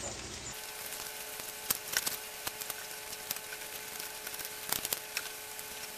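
Seeds and stringy pulp being scooped out of a halved butternut squash: faint scattered scrapes and small taps over a steady faint hum.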